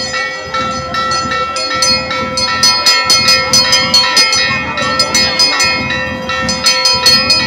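Temple bells clanging rapidly, several strikes a second, over a steady ringing tone.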